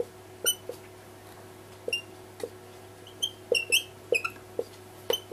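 Whiteboard marker squeaking and tapping on the board in short, irregular strokes as it writes an equation, over a faint steady hum.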